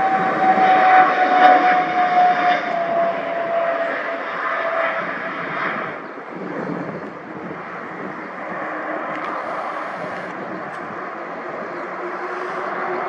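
Fixed-wing aircraft engines passing, a steady tone in the noise sliding slowly down in pitch as it goes by. The sound fades about halfway, then swells again near the end.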